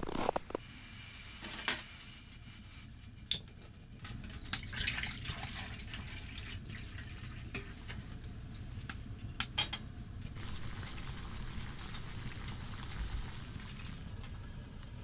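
Water poured into a metal camping pot for a couple of seconds, among a few sharp clinks of metal cookware being handled.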